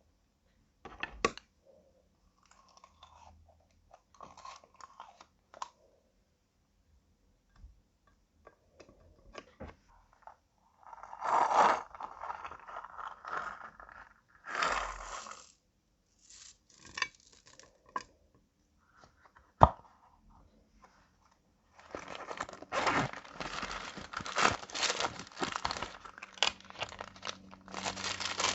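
Close-up crunching, crackling and scraping of makeup and slime being worked by hand: scattered crisp clicks and short crunches with quiet gaps and one sharp snap about two-thirds through, then dense, continuous crackling for the last several seconds.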